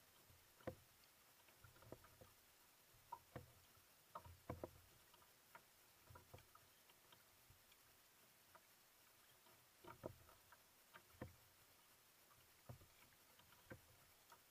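Faint, irregular small splashes and drips of water from kayak paddle strokes on calm water.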